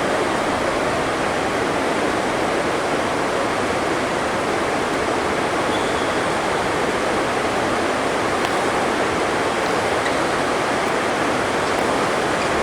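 Heavy rain on a sports hall roof: a steady, dense hiss.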